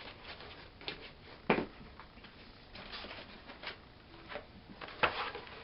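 Rustling and light clatter of frozen food packages being handled and moved around, with two sharper knocks, one about a second and a half in and one near the end.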